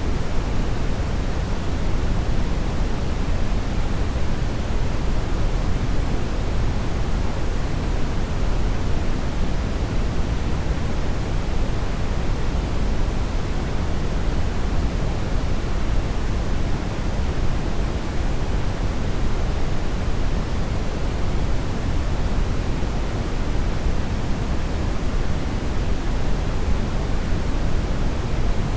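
Steady, unchanging brown noise: an even, featureless rush with most of its weight in the low end, thinning toward the top.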